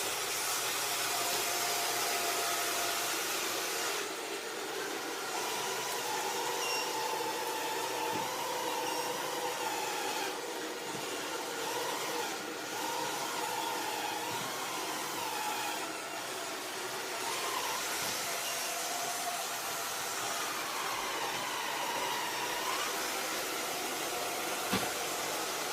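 Robot vacuum cleaner running: a steady whirring hiss with a faint whine that wavers in pitch, and one small knock near the end.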